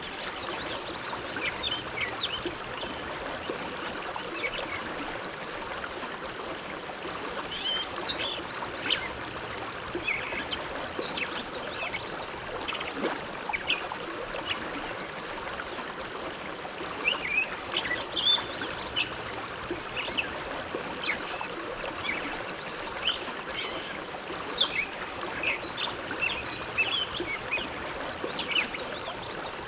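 Bow River flowing: a steady rush of water with frequent short, high splashes and gurgles scattered throughout.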